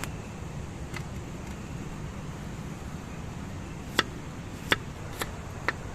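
Steady low rumble of strong wind on the microphone, with about six sharp cracks or knocks, most of them in the second half.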